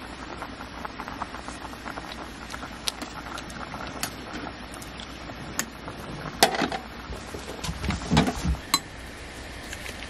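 Steady rain patter with scattered small ticks, and a few louder clatters of cooking utensils and cookware on a camp table past the middle and again near the end.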